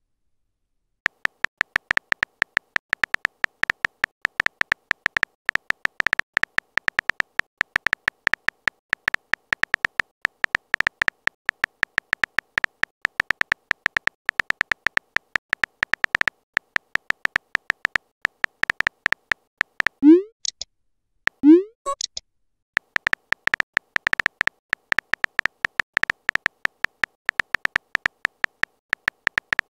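Rapid electronic keyboard tap clicks of a phone-texting app as a message is typed out letter by letter. About twenty seconds in the typing stops for two short rising pop tones a second and a half apart, as messages are sent and received, then the rapid tapping resumes.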